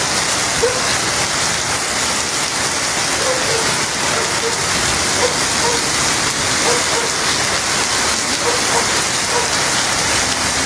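Heavy downpour with floodwater rushing across a street: a steady, dense hiss of rain.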